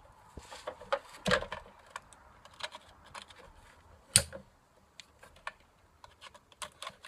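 Small parts being handled at a workbench: irregular light clicks and taps of screws and small pieces, with one sharp click about four seconds in.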